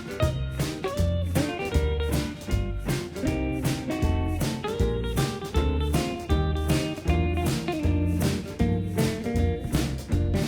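Background music with a steady beat and guitar, in a bluesy style.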